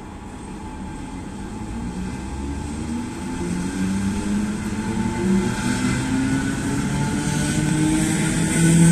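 Czech class 460 'Tornádo' electric multiple unit pulling away and passing close by, its traction motors whining in several tones that rise in pitch as it gathers speed, getting louder throughout.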